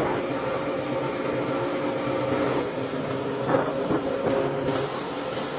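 Woodworking machine running steadily as wooden brush-handle blanks are fed into it, with a short clatter about three and a half seconds in.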